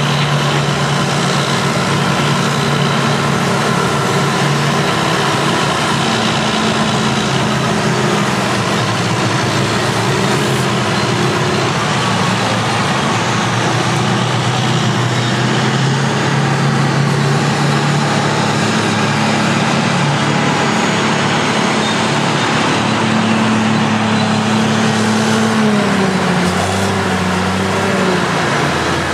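Several heavy diesel engines of classic earthmoving machines working at once. It is a steady, loud mix of engine notes that shift in pitch as the machines change revs, most clearly near the end.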